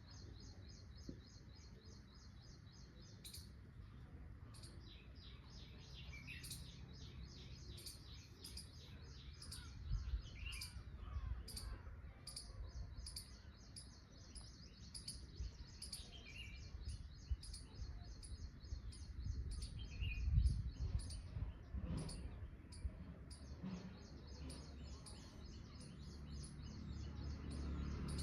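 Birds chirping: a steady run of rapid high-pitched chirps, several a second, with sharper single chirps over it. A low rumble swells briefly about a third of the way in and again about two thirds of the way in.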